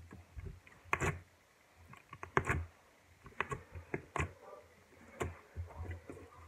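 Homemade pink slime being pressed and kneaded against a tabletop with the fingers, giving irregular sharp clicks and pops as air pockets in it are squeezed out: a clicking slime.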